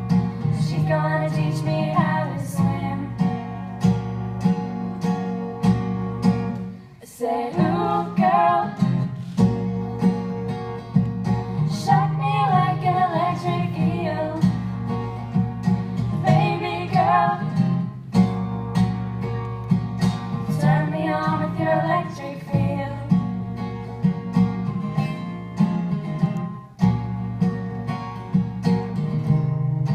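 A song played on strummed acoustic guitar with a singer's voice over it, the strumming steady throughout and dropping out briefly about seven seconds in.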